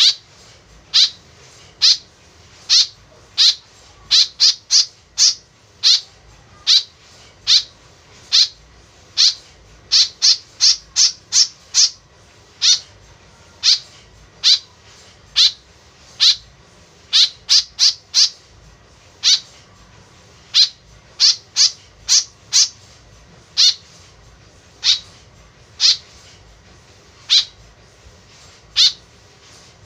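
White-breasted woodswallow giving a long series of short, sharp calls, singly about once a second and in places in quick runs of three to five.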